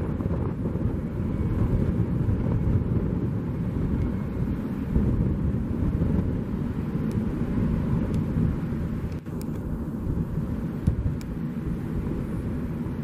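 Airbus A319 corporate jet's engines giving a steady, low rumble as the aircraft climbs away into the distance.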